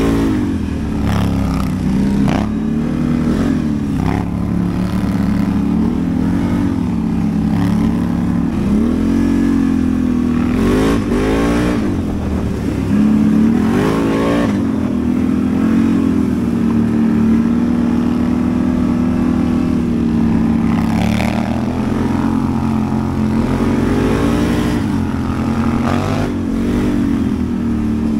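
ATV engine running under way, revving up and falling back again and again, with a steadier stretch near the middle.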